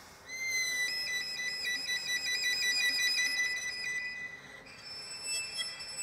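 Solo violin, bowed, playing very high, whistle-like notes. A held note breaks into a rapid trill for about three seconds, then a thin, still higher and quieter note is held from a little before the end.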